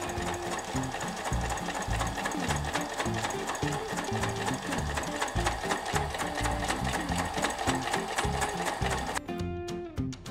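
Electric household sewing machine (Brother) running, its needle stitching rapidly through heavy gold-thread obi brocade, stopping shortly before the end. Background music plays throughout.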